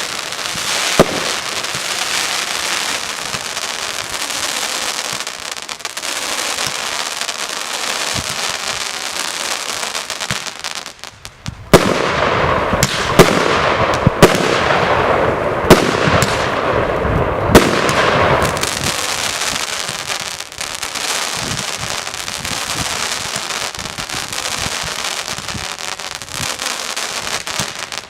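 A consumer firework burning with a continuous hissing crackle dotted with sharp clicks. After a short lull about eleven seconds in it grows louder, with a few sharp pops.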